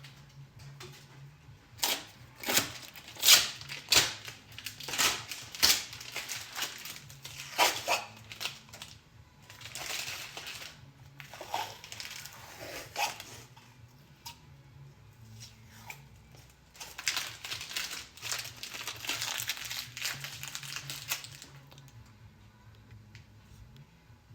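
Masking tape being peeled off an LS V8 engine and crumpled: a run of sharp crackling rips in the first several seconds, then longer rustling tearing stretches, with a faint low hum underneath.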